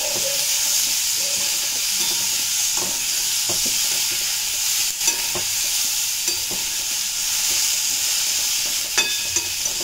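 Chopped tomatoes and whole spices sizzling in hot oil in a pan, with a steady frying hiss. A steel spoon stirring them scrapes and clicks against the pan now and then, most sharply about five seconds in and near the end.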